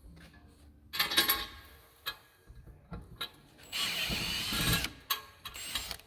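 Hand rivet gun setting aluminium rivets into metal brackets: a loud clattering burst about a second in, a second of scratchy rasping from just under four seconds in, then a few sharp clicks.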